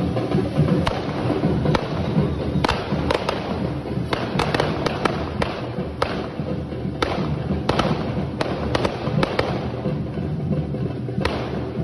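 Carretilles, the spinning correfoc fireworks, fizzing on a devils' fire fork, with many sharp bangs as they burst, bunched several a second around the middle, over the steady beat of a drum band.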